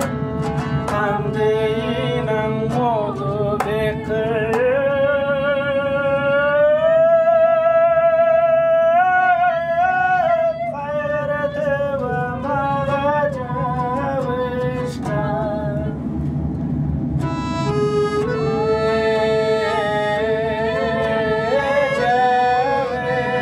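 A small acoustic ensemble playing live: a singing voice carries a slow melody with long held notes sliding between pitches, over piano accordion chords, a plucked small string instrument and a bowed violin. A long held note comes about five seconds in, and a new phrase starts after about seventeen seconds.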